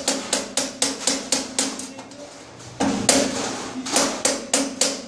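A hand tool striking metal again and again, about five quick strikes a second, each with a metallic ring from the sheet-metal box and pipe being worked on. The strikes ease off about two seconds in and pick up again, louder, near three seconds.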